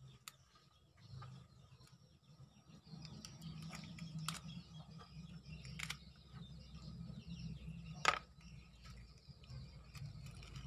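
A knife scraping the scales off a small whole fish and cutting into it on a cutting board: a run of scrapes and sharp clicks, the sharpest about eight seconds in.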